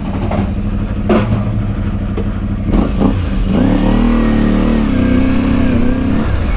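Parallel-twin motorcycle engine running and pulling away, with a couple of short knocks early on. The revs rise about three and a half seconds in, hold, then ease off near the end.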